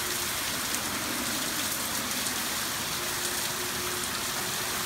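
Heavy storm rain pouring down steadily, an even hiss of water on surfaces. A faint steady hum joins in about three seconds in.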